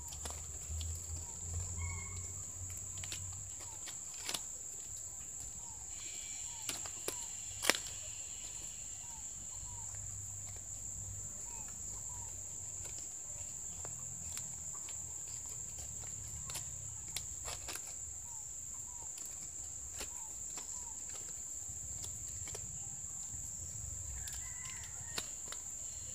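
Coconut palm leaves rustling and crackling in the hands in short scattered clicks, with one sharper snap about eight seconds in, as the leaflet ends are tucked into a woven basket. Behind it, a steady high insect drone and chickens clucking and calling.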